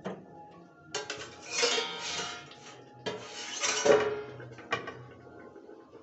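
A metal spoon scraping and clinking against an iron kadai, in two rough strokes of about a second each, with faint background music underneath.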